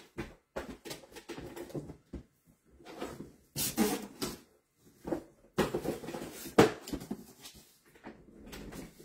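Objects being handled, moved and set down by hand, with irregular knocks, bumps and rustling. The loudest knocks come about four and about six and a half seconds in.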